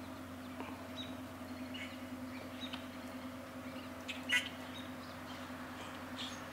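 Steady low drone of the icebreaker CCGS Griffon's engines carrying across the water, with scattered bird chirps and calls over it and one louder call about four seconds in.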